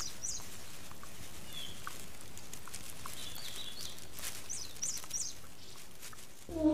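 Red pandas feeding in bamboo: soft rustling of leaves and small crunching ticks over a steady forest hiss, with a few brief high chirps. Music comes in right at the end.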